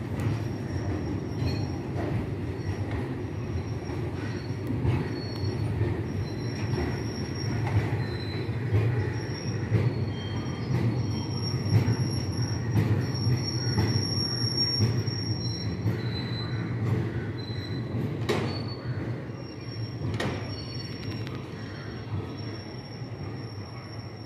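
Freight train rolling slowly past, a steady rumble of wagons on the rails with the thin high squeal of wheels on the rails coming and going and occasional clanks.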